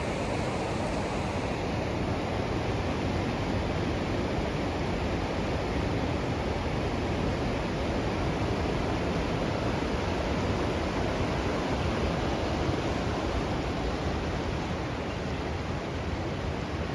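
Fast-flowing river rushing steadily, a constant even roar of moving water.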